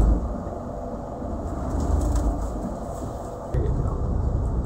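Low, steady rumble of a motor yacht's IPS diesel engines running at slow manoeuvring speed under joystick control. The rumble steps up suddenly about three and a half seconds in.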